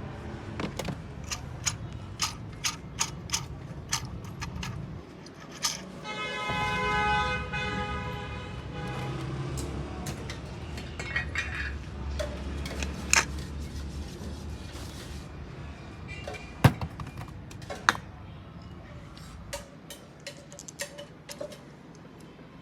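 Workshop noises: a low rumble, over which a run of sharp taps comes about every two-thirds of a second for the first few seconds. A steady buzzing tone follows for about two seconds, then two loud sharp knocks a second apart, and the rumble dies away near the end.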